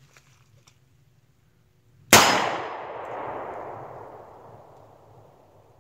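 One shot from a snub-nosed Smith & Wesson .38 Special revolver firing a handload with a starting charge of CFE Pistol powder, about two seconds in. The sharp report rings out and fades over about three seconds.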